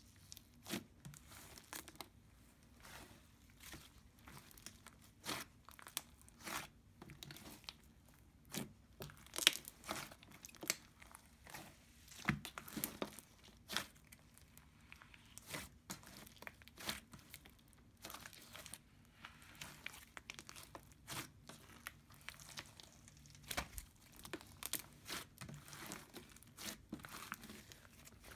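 Hands kneading, stretching and folding a large mass of mixed slime, with irregular sticky clicks and crackling pops as air pockets burst.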